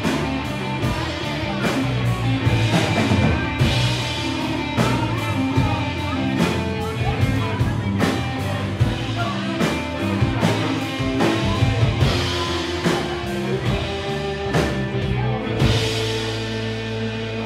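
Live rock band playing: electric and acoustic guitars, bass and drum kit with a steady beat. About 16 seconds in there is a cymbal crash and the drums stop, leaving a held chord ringing out.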